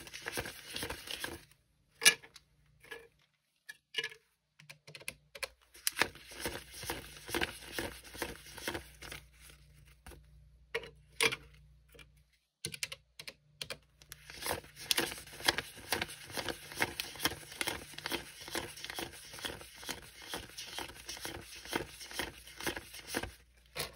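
Canadian polymer banknotes being counted by hand: crisp flicks and crinkles of the notes, scattered at first, then a fast, steady run of flicks from a little past halfway.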